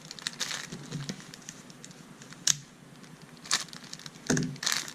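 Small packaging and plastic parts being handled: light crinkling with scattered clicks and taps, a sharp click about halfway through and louder rustles near the end.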